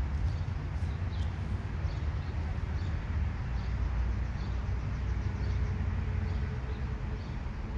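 Outdoor ambience: wind rumbling on the microphone, with faint bird chirps repeating every half second or so.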